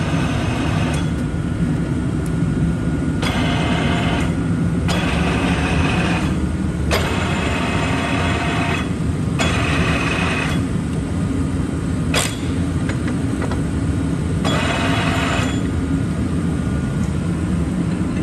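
A large Poreba gap-bed engine lathe humming steadily while its saddle is run on rapid traverse in short bursts. About half a dozen times the traverse drive whirs for a second or two, with a whine, then stops. One sharp click comes about twelve seconds in.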